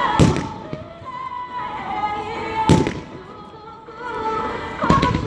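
Fireworks shells bursting three times, about two and a half seconds apart, over music played for the show.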